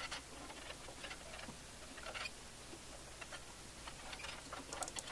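Wood stove's metal reburn tube and insulation panel being worked loose by hand inside the firebox: faint, irregular light clicks and scrapes, with a small cluster of them near the end.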